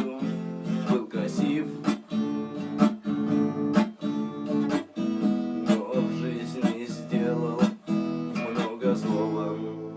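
Guitar strummed in a steady rhythm, without singing, with the last chord left ringing and dying away near the end.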